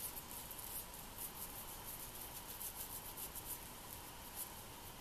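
A small brush scratching in quick, irregular strokes over a clutch friction plate's lining, spreading oil on it to pre-oil the plate. The strokes are faint.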